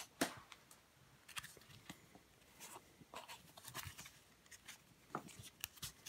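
Game cards being picked up and handled: soft, scattered clicks and light rustling of card stock in the hands.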